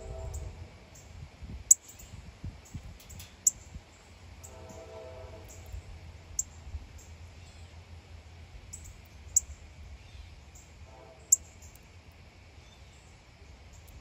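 Short, sharp, high bird chip notes every few seconds over a steady low outdoor rumble. A brief lower pitched call sounds about five seconds in and again faintly about eleven seconds in.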